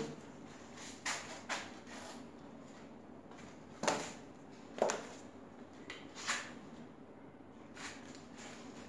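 About six short, faint knocks and scuffs, spread irregularly over quiet room tone. They come from a person moving and handling things at a whiteboard.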